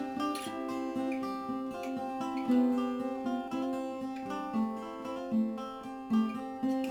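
Acoustic guitar playing a melody of plucked notes.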